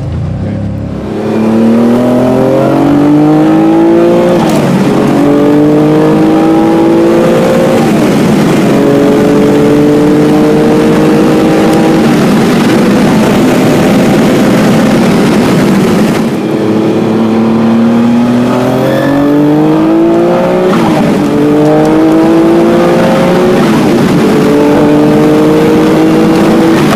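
Noble M12 GTO-3's 3-litre twin-turbo V6 accelerating hard through the gears, heard from inside the cabin: the pitch climbs and drops back at each upshift, several times, with a brief lift off the throttle about two-thirds of the way through.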